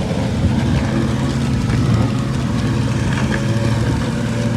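Riding lawn mower's engine running at a steady speed, an even, unbroken drone.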